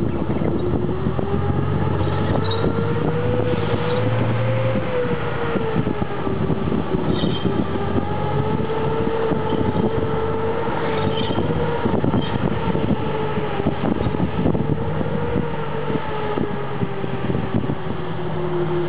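Centurion tank's Rolls-Royce Meteor V12 engine running as the tank drives off over rough ground. A whine rises and falls, with rapid clatter from its steel tracks.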